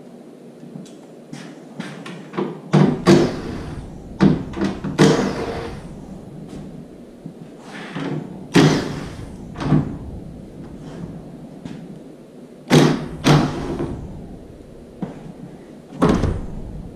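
Cordless power driver spinning the nuts off a car spoiler's mounting studs from the underside of the trunk lid, running in a series of short bursts with metallic knocks. Near the end a heavier thud comes as the trunk lid is lowered.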